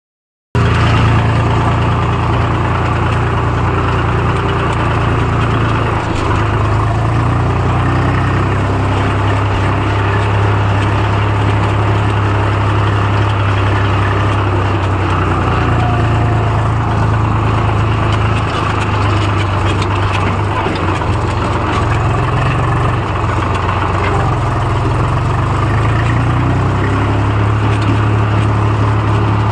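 Tractor diesel engine running under way, heard from the driver's seat: a steady low engine hum whose pitch steps up and back down slightly several times as the revs change.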